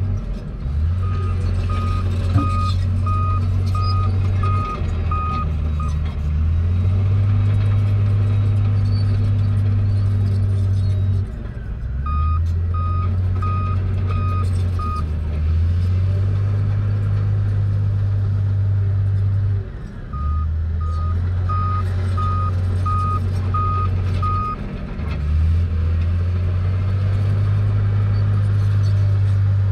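Komatsu crawler bulldozer's diesel engine running with a steady low drone that dips and picks up again several times as it works dirt. Its reversing alarm beeps in three bouts of five to seven evenly spaced beeps as it backs up between pushes.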